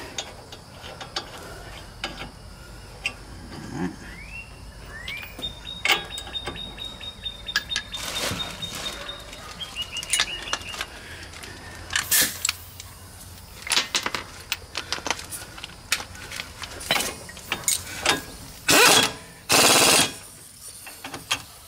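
Hand tools and sockets clinking and an air hose being coupled. Near the end come two short bursts from a pneumatic impact wrench, running down the brake caliper mounting bracket bolts.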